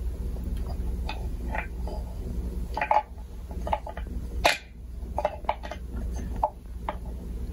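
Small wooden figures clicking and knocking against a wooden toy ark as they are handled, with a sharp knock about three seconds in and a louder one about a second and a half later.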